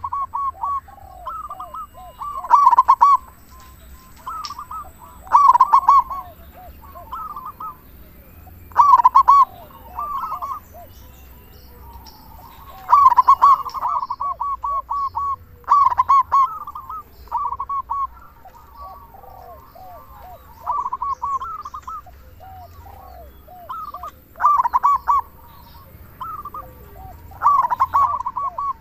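Local zebra dove (perkutut) cooing loudly in its typical song: short phrases of rapid staccato coo notes, repeated every two to three seconds.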